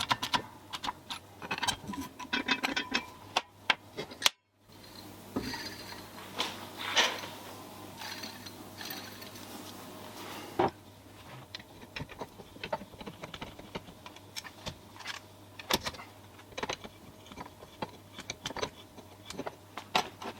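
Small metal parts of a drill press clicking, clinking and knocking as they are handled and fitted together, in irregular taps. The sound breaks off briefly about four seconds in, and afterwards a faint steady hum lies under the taps.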